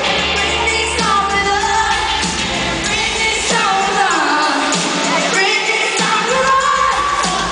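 Live pop song over an arena PA: a woman sings a melody into a handheld microphone over loud amplified backing music. The bass drops away for a couple of seconds midway, then returns.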